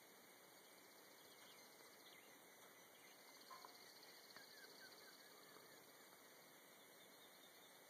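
Near silence: faint steady hiss with a brief faint blip about three and a half seconds in and a few faint short chirps just after.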